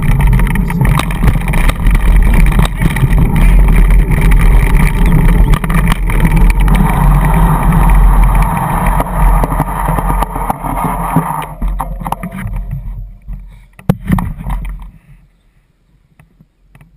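Wheels of a Tufftrail dog scooter rolling fast over tarmac and paving, a loud rumble with wind buffeting the microphone, pulled by a Malamute on a line. The rumble eases off, there is a sharp knock, and the sound dies away as the scooter comes to a stop near the end.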